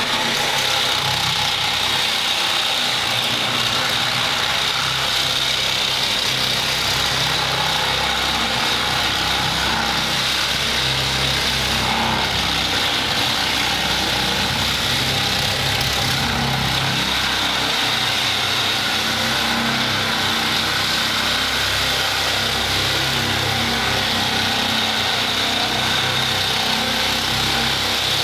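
Bosch angle grinder with a toothed paint-stripping (scabbling) wheel held flat on a narrowboat's steel side, running steadily and grinding old paint off down to bare steel, with a steady high whine over the grinding.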